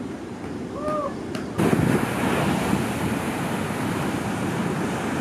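Breaking ocean surf with wind rushing on the microphone, cutting in suddenly and loud about one and a half seconds in; before that, quieter surf.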